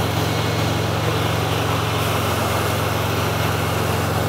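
A Mexican-built VW Beetle's air-cooled, fuel-injected flat-four engine running steadily, with its cooling fan blowing air past the engine and exhaust.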